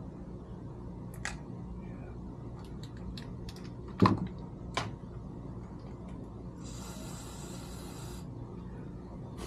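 Small parts clicking and a sharp knock about four seconds in, then a hiss of aerosol throttle body cleaner sprayed for about a second and a half.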